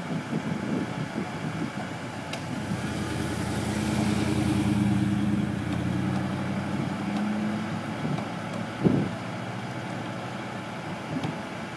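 Crane truck's engine running, growing louder for a few seconds in the middle and then settling back down. A single short thump comes near the end.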